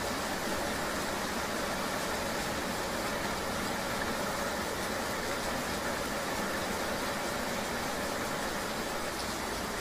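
Steady rain ambience with a vehicle engine running underneath: an even, unbroken hiss with no separate drops or knocks standing out.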